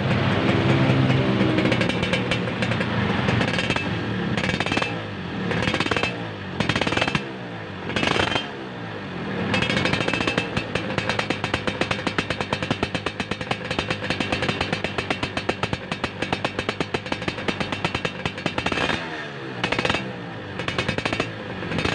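Yamaha F1ZR's two-stroke single revved in short throttle blips through its stock muffler, which has been hollowed out for a racing sound. It makes a crisp, rapid rattling crackle that swells with each blip and falls back toward idle between them.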